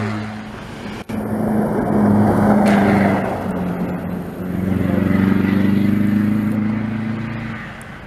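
Rally-raid pickup truck engine running hard under full throttle, its note dipping about four seconds in and pulling again before fading as the truck drives off, with the hiss of its tyres throwing up snow. A brief sharp break about a second in.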